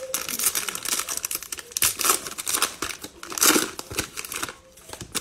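The cellophane wrapper of a 2021 Mosaic football trading card pack crinkling and tearing as it is handled and ripped open. There is a dense crackle throughout, loudest about two and three and a half seconds in.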